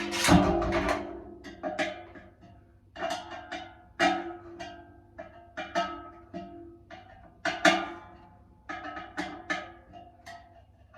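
Irregular knocks and clanks on the dryer's sheet-metal casing and parts as they are handled, each strike ringing briefly at the same few pitches.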